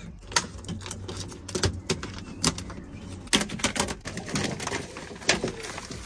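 Plastic moisture-barrier sheet being peeled off a car's inner door panel, tearing away from the sticky sealant with irregular crackling and crinkling.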